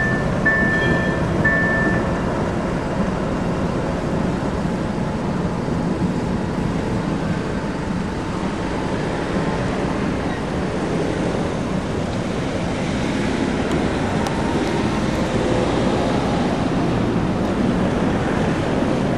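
A ChME3 shunting locomotive's six-cylinder diesel engine runs steadily as the locomotive moves slowly over yard tracks. A run of short high beeps sounds in the first two seconds.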